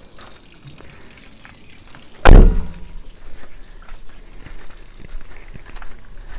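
One loud, heavy slam about two seconds in, as a panel of a camper van is shut hard, with a short ringing decay, followed by a few faint small knocks.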